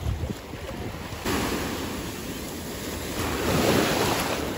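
Small sea waves breaking and washing over the shallows at the shoreline: a rush of surf that comes in suddenly about a second in and swells louder near the end.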